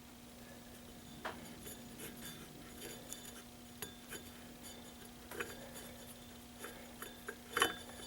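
Small metal parts clinking and tapping as they are handled and set down, a scattered series of light clicks with the loudest clink near the end, over a faint steady hum.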